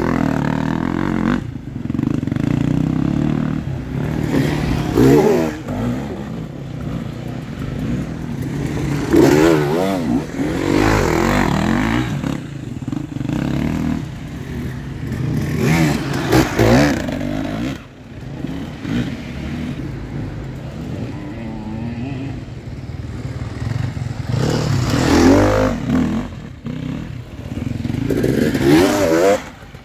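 Enduro dirt bike engines revving hard in repeated bursts, the pitch swinging up and down as riders in turn power up a steep, muddy climb under load.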